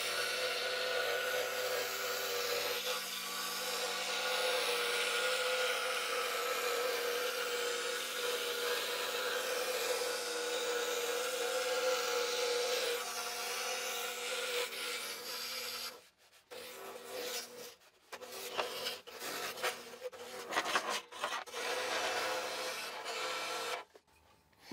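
Scroll saw cutting plywood with a flat No. 3 blade, a steady reciprocating buzz mixed with the hiss of its dust blower. After about 16 seconds the sound turns choppy, breaking off briefly several times.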